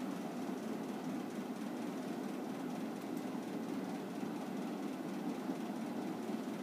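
Steady low hum of background noise, even and unchanging, with no distinct events.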